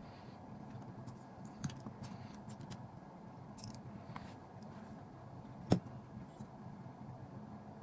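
Small clicks and light metallic tinkling from handling tiny screws, nuts and small hand tools while assembling a miniature metal roof rack, with one sharper click a little before six seconds in. A faint steady hum lies underneath.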